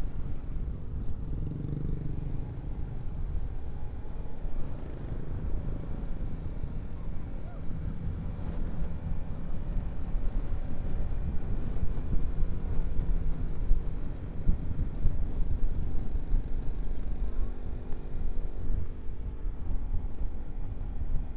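Motorcycle riding along, heard from on the bike: a steady engine hum under heavy wind rumble on the microphone. A clearer engine note comes through near the end.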